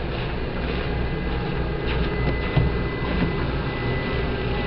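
The motors and propellers of a foam R/C flying boat whining steadily at high power as it taxis fast across the water, over a low rumble. A brief thump a little over halfway through.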